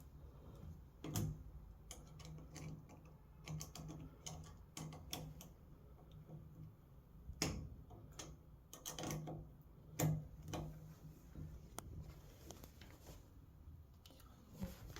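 Scattered small clicks and taps of a screwdriver on metal as the screw on a shower valve handle is loosened and backed out.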